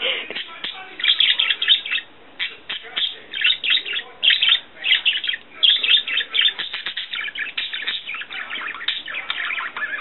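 Pet budgerigar warbling: a fast, unbroken stream of chirps and chattering notes, louder from about a second in.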